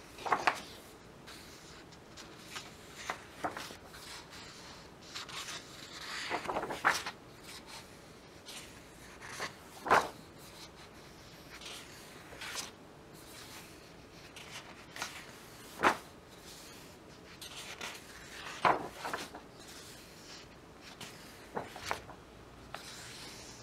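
Paper pages of a large book being turned one after another, each turn a short papery swish or flap, about ten of them spaced a second or two apart.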